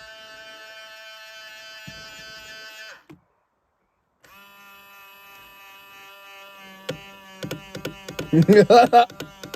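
A 2000 Ford Explorer's power side-mirror motor whining with a steady high-pitched tone in two runs of about three seconds each, split by a short pause. This is the mirror's odd 'funny noise'. A loud voice comes near the end.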